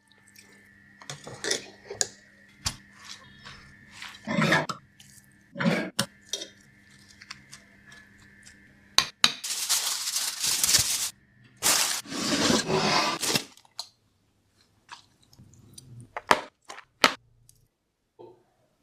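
Kitchen cookware and utensils clinking and knocking during cooking, over a steady hum that stops about eleven seconds in. Two long hissing stretches come about nine and twelve seconds in.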